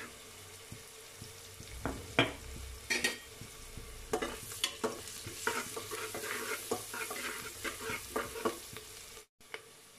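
Onions and turmeric sizzling in hot mustard oil in a pressure cooker while a spatula stirs and scrapes against the pot, with repeated short scrapes and clicks from about two seconds in. The sound drops out for a moment near the end.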